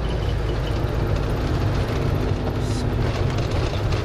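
Minibus engine and tyre noise heard from inside the cabin while driving: a steady low drone with road rumble.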